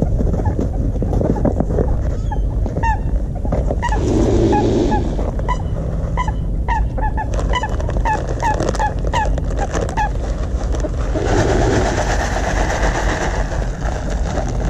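Waterfowl giving a long run of short, repeated honking calls, with a low wind rumble on the microphone and a couple of stretches of rushing noise.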